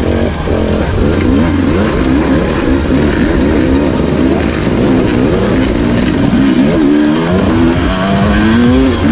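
Enduro dirt bike engine revving up and down again and again as the throttle is worked through the gears. The pitch climbs and drops every second or so, with a longer climb near the end.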